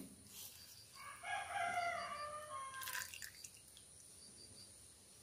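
A rooster crows once, a single call about two seconds long that starts about a second in and falls in pitch toward its end. Under it, a thin stream of cooking oil trickles faintly onto sugar in a plastic bowl.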